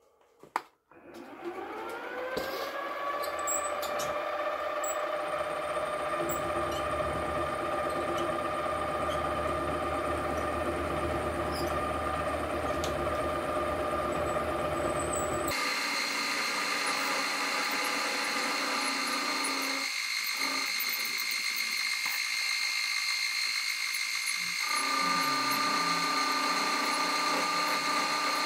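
Small milling machine switched on with a click, its motor spinning up with a rising whine over about a second and then running steadily. About halfway through the sound changes abruptly to a higher-pitched steady whine.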